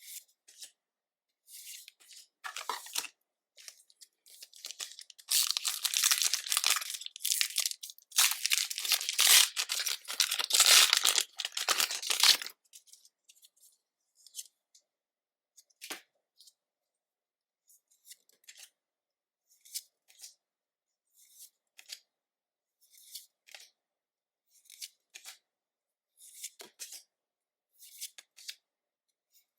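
Plastic packaging from Pokémon card booster bundles or packs being torn open with a crinkly ripping for about seven seconds, starting a few seconds in. Around it are scattered soft clicks and rustles of the cards and packs being handled.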